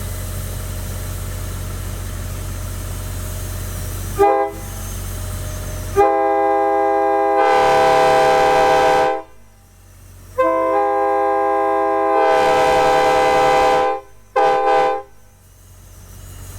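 Narrow-font 2000s-era Nathan K5LA five-chime locomotive air horn sounding a full chord: a short toot about four seconds in, two long blasts of about three seconds each, and a final short toot. Before the horn there is a steady low engine hum.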